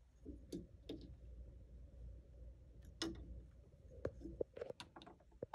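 Faint, irregular clicks and taps of fingers and fabric being worked into the metal binder attachment of a sewing machine, over a low steady hum, with no stitching.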